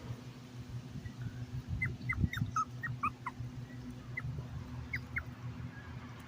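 A puppy whimpering: a run of about ten short, high-pitched whines, each falling in pitch, clustered in the middle few seconds.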